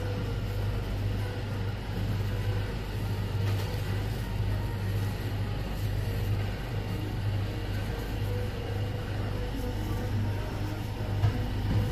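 Steady low mechanical hum of a running motor or engine, with a faint knock or two near the end.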